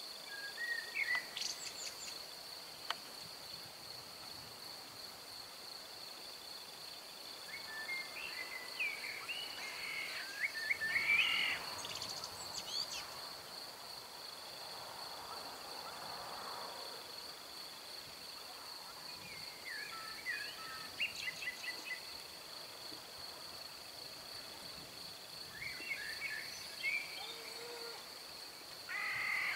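Steady, high-pitched trill of crickets, with a bird singing short chirping phrases several times over it. No thunder is heard.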